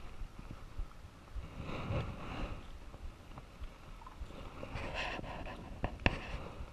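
Rustling of dry grass and clothing as a person moves and settles down on the ground, with a few sharp clicks near the end, the loudest about six seconds in.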